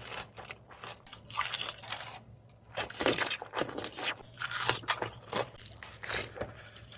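Close-miked crunching and chewing of fried restaurant food: a run of short, sharp crunches that come thicker from about halfway through.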